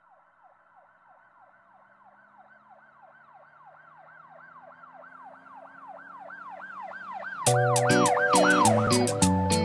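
Emergency-vehicle siren in a fast yelp, quick falling sweeps about three a second, growing louder from faint. About seven and a half seconds in, loud strummed-guitar music cuts in over it.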